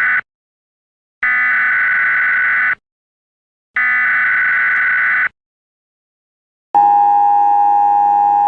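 Emergency Alert System tones: screeching data bursts of about 1.5 s each, separated by short silences, with one ending just after the start and two more following. About two-thirds of the way in they give way to the steady two-tone attention signal that comes before an emergency broadcast.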